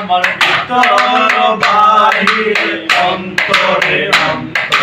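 A man singing a song, accompanied by a quick, steady rhythm of sharp taps beaten by hand on a plastic plate used as a makeshift drum.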